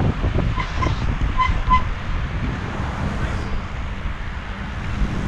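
Wind buffeting the microphone of a camera moving along with a group bicycle ride, a steady low rumble. About a second in, four short high tones sound in two pairs.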